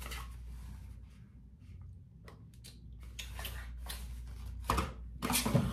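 Small cardboard box of face cream being handled and turned over in the hands: light scratching rustles and small clicks, with a couple of louder knocks near the end.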